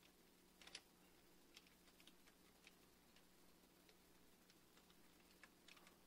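Faint, irregular clicks of computer keyboard keys as a line of text is typed, the loudest a little under a second in, over a faint steady hum.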